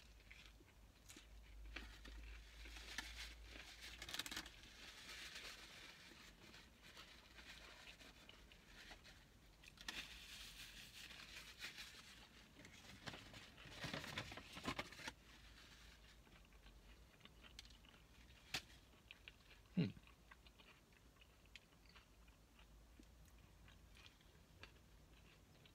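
Faint chewing of a mouthful of hamburger, soft crunching and smacking that comes and goes, with a light crinkle of paper napkin. A single soft knock about twenty seconds in.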